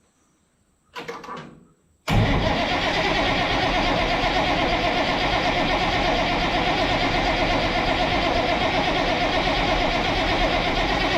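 Farm tractor engine running steadily; it comes in suddenly about two seconds in, after near silence.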